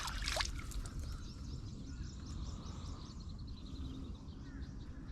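Quiet open-air lake ambience: a low steady rumble of wind on the microphone, with faint bird chirps, including a quick run of high chirps about halfway through. A brief swish sounds right at the start.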